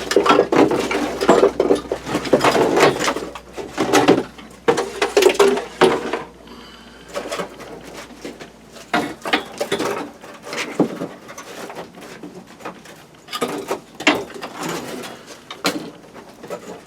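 Irregular knocks and clatter of hard objects being handled and set down, dense for the first few seconds, then sparse single knocks.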